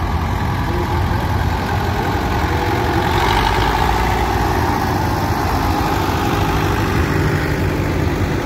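Vintage tractor engines running as a blue Ford and a grey Ferguson drive slowly past in a parade, a steady low rumble that swells slightly around three seconds in as the Ford passes close.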